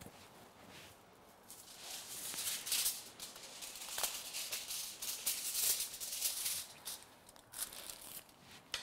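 Aluminium hair foil crinkling and rustling as a foil packet is laid against a section of hair and folded, in a run of crackles from about a second and a half in until about seven seconds in.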